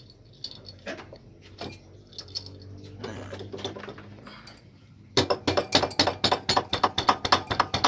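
Small metal engine parts clinking and rattling as they are handled: a few scattered clicks, then from about five seconds in a fast, loud run of metallic clicks and rattles.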